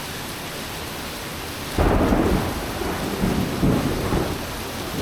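Heavy thunderstorm rain hissing steadily, then a sudden loud clap of thunder about two seconds in that rolls on as rumbling.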